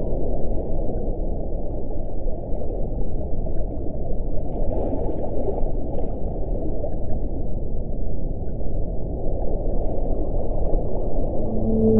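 Underwater recording of whale song in a pause between calls: a steady, muffled rushing sea noise with no clear call, and a low moaning whale call beginning right at the end.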